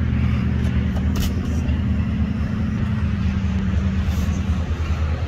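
Steady, low-pitched engine drone with a deep hum running underneath, dropping slightly in pitch around the middle.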